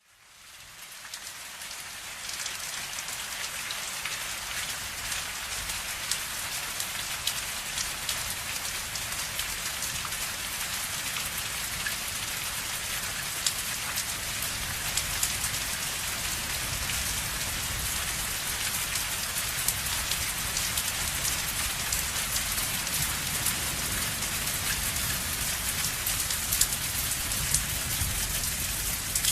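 Steady rain falling, a dense even hiss with many separate drops ticking on a surface, fading in over the first couple of seconds.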